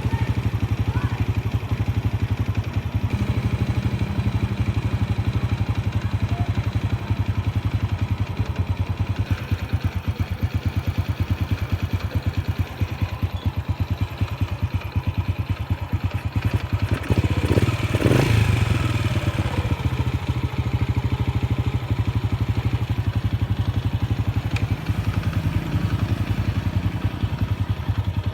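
Honda Wave R100's small single-cylinder four-stroke engine idling with an even, rapid exhaust beat, briefly louder about seventeen to nineteen seconds in.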